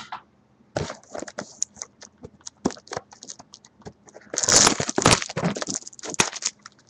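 Handling noise: a run of light clicks and taps, then a loud burst of rustling about four and a half seconds in and a shorter one near six seconds.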